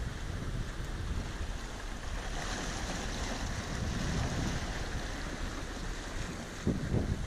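Wind rumbling on the microphone over the steady wash of sea waves breaking on rocks, with two brief low thumps near the end.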